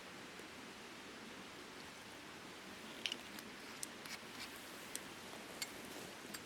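Wood campfire burning: a steady low hiss with scattered sharp pops and crackles, which become more frequent from about three seconds in.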